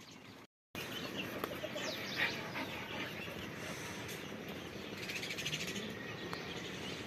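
Small birds chirping and twittering: many short, high chirps and a few falling whistles over a steady outdoor background.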